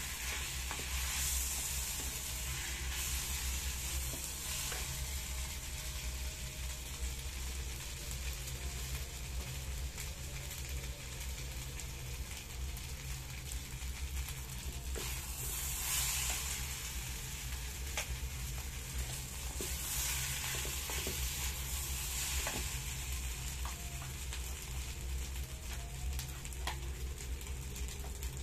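Fried rice sizzling steadily in a small electric frying pan, with a plastic spatula stirring and scraping the rice now and then, over a steady low hum.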